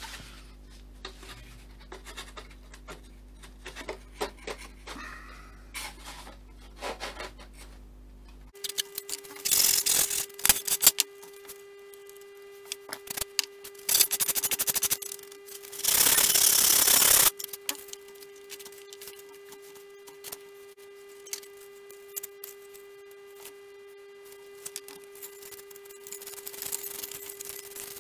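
Balsa wood parts being handled and sanded by hand at a workbench: light scrapes and knocks, then three louder rasping stretches of sanding of a second or so each, about ten, fourteen and sixteen seconds in. A steady electrical hum sits underneath.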